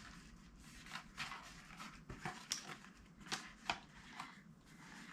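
Quiet handling noises: a few light, irregular clicks and taps of an eyeshadow palette being held and turned over in the hands.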